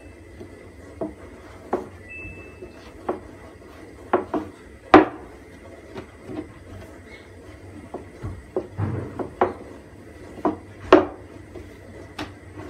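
Irregular knocks and thuds of a wooden rolling pin and yeast dough on a floured wooden board as the dough is rolled out, turned and shaped by hand, with the loudest knocks about five seconds and eleven seconds in.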